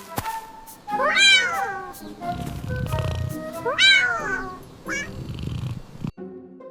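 Cartoon cat meowing twice over background music: two loud calls that rise and fall in pitch, about a second in and about four seconds in, with a low rumble between them. The music cuts off near the end.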